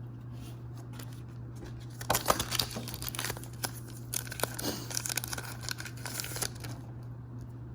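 Trading-card pack wrapper being torn open and crinkled: a crackling, tearing burst starting about two seconds in and lasting some four seconds.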